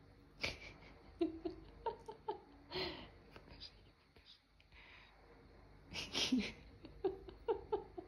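A person's soft voice: breathy giggles and short murmured sounds, in two clusters with a pause about halfway.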